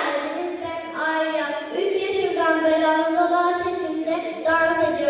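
A high voice singing slow, long-held notes that glide gently in pitch, over the hall's sound system.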